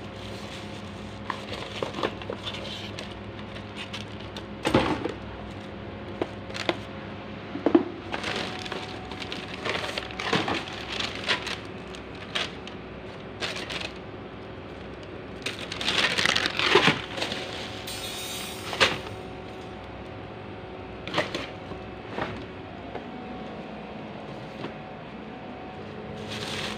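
Plastic carrier bags rustling and crinkling, with irregular knocks and clatters of plastic and metal items being moved about, over a faint steady hum.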